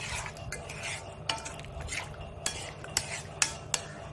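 Steel spoon stirring thick curry gravy in a kadai, with irregular clinks and scrapes of the spoon against the pan.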